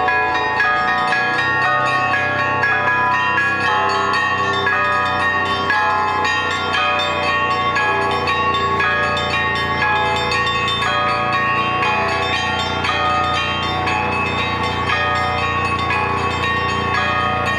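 Russian Orthodox church bells rung by a bell ringer: many bells of different pitches struck in a rapid, continuous, unbroken peal.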